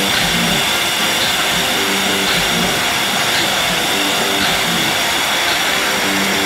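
Dry diamond core drill boring into concrete block, its motor and the dust-extraction vacuum on the shroud running as one steady rushing noise. Background music with a beat plays underneath.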